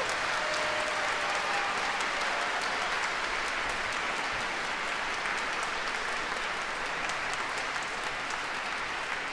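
Theatre audience applauding steadily, a dense patter of many hands clapping at once.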